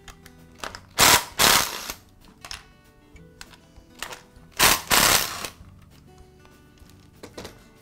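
Cordless drill/driver running in two bursts of about a second each, backing screws out of a plastic housing.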